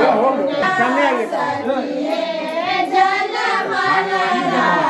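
Several high-pitched voices singing a song together.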